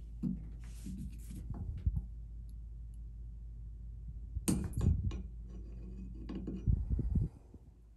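Needle-nose pliers clicking and scraping against a shower mixing valve as its cold-side check valve is pulled out: scattered small clicks, one sharper click about four and a half seconds in, and a few low handling thumps.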